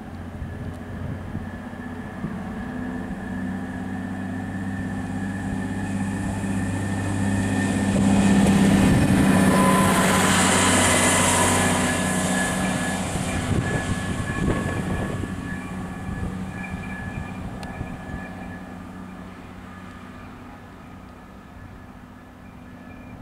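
ÖBB class 5047 diesel railcar passing: its diesel engine runs with a steady low note that grows louder as it approaches, peaks with a hiss of wheels on rails as it goes by about ten seconds in, then fades as it draws away.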